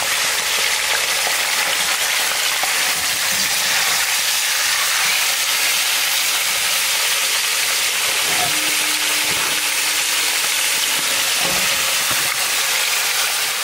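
Raw lamb chops and offcuts sizzling in hot oil in a wok, a steady loud frying hiss as the meat starts to sear and give off its moisture, turned now and then with a metal ladle.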